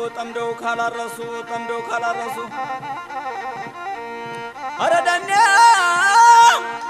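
Background music: steady held instrumental notes with a plucked and bowed texture, then about five seconds in a loud high melody with wide vibrato comes in for nearly two seconds.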